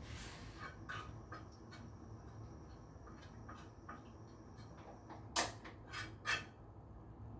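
Kitchen handling sounds: scattered light clicks of utensils and containers, then three sharp knocks a little after five seconds in, the first the loudest.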